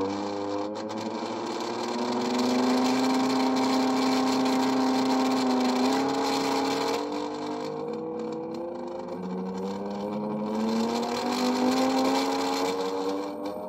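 Brushless 10-inch hoverboard hub motor spinning up on an ESC as its supply voltage is raised. Its electric whine climbs in pitch with the speed, drops back once about halfway, then climbs again.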